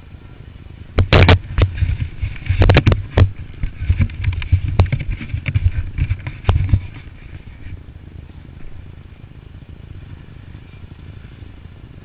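Dirt bike engine running loud for about six seconds, broken by many sharp knocks and bangs, then dropping back to a quieter steady rumble about seven seconds in.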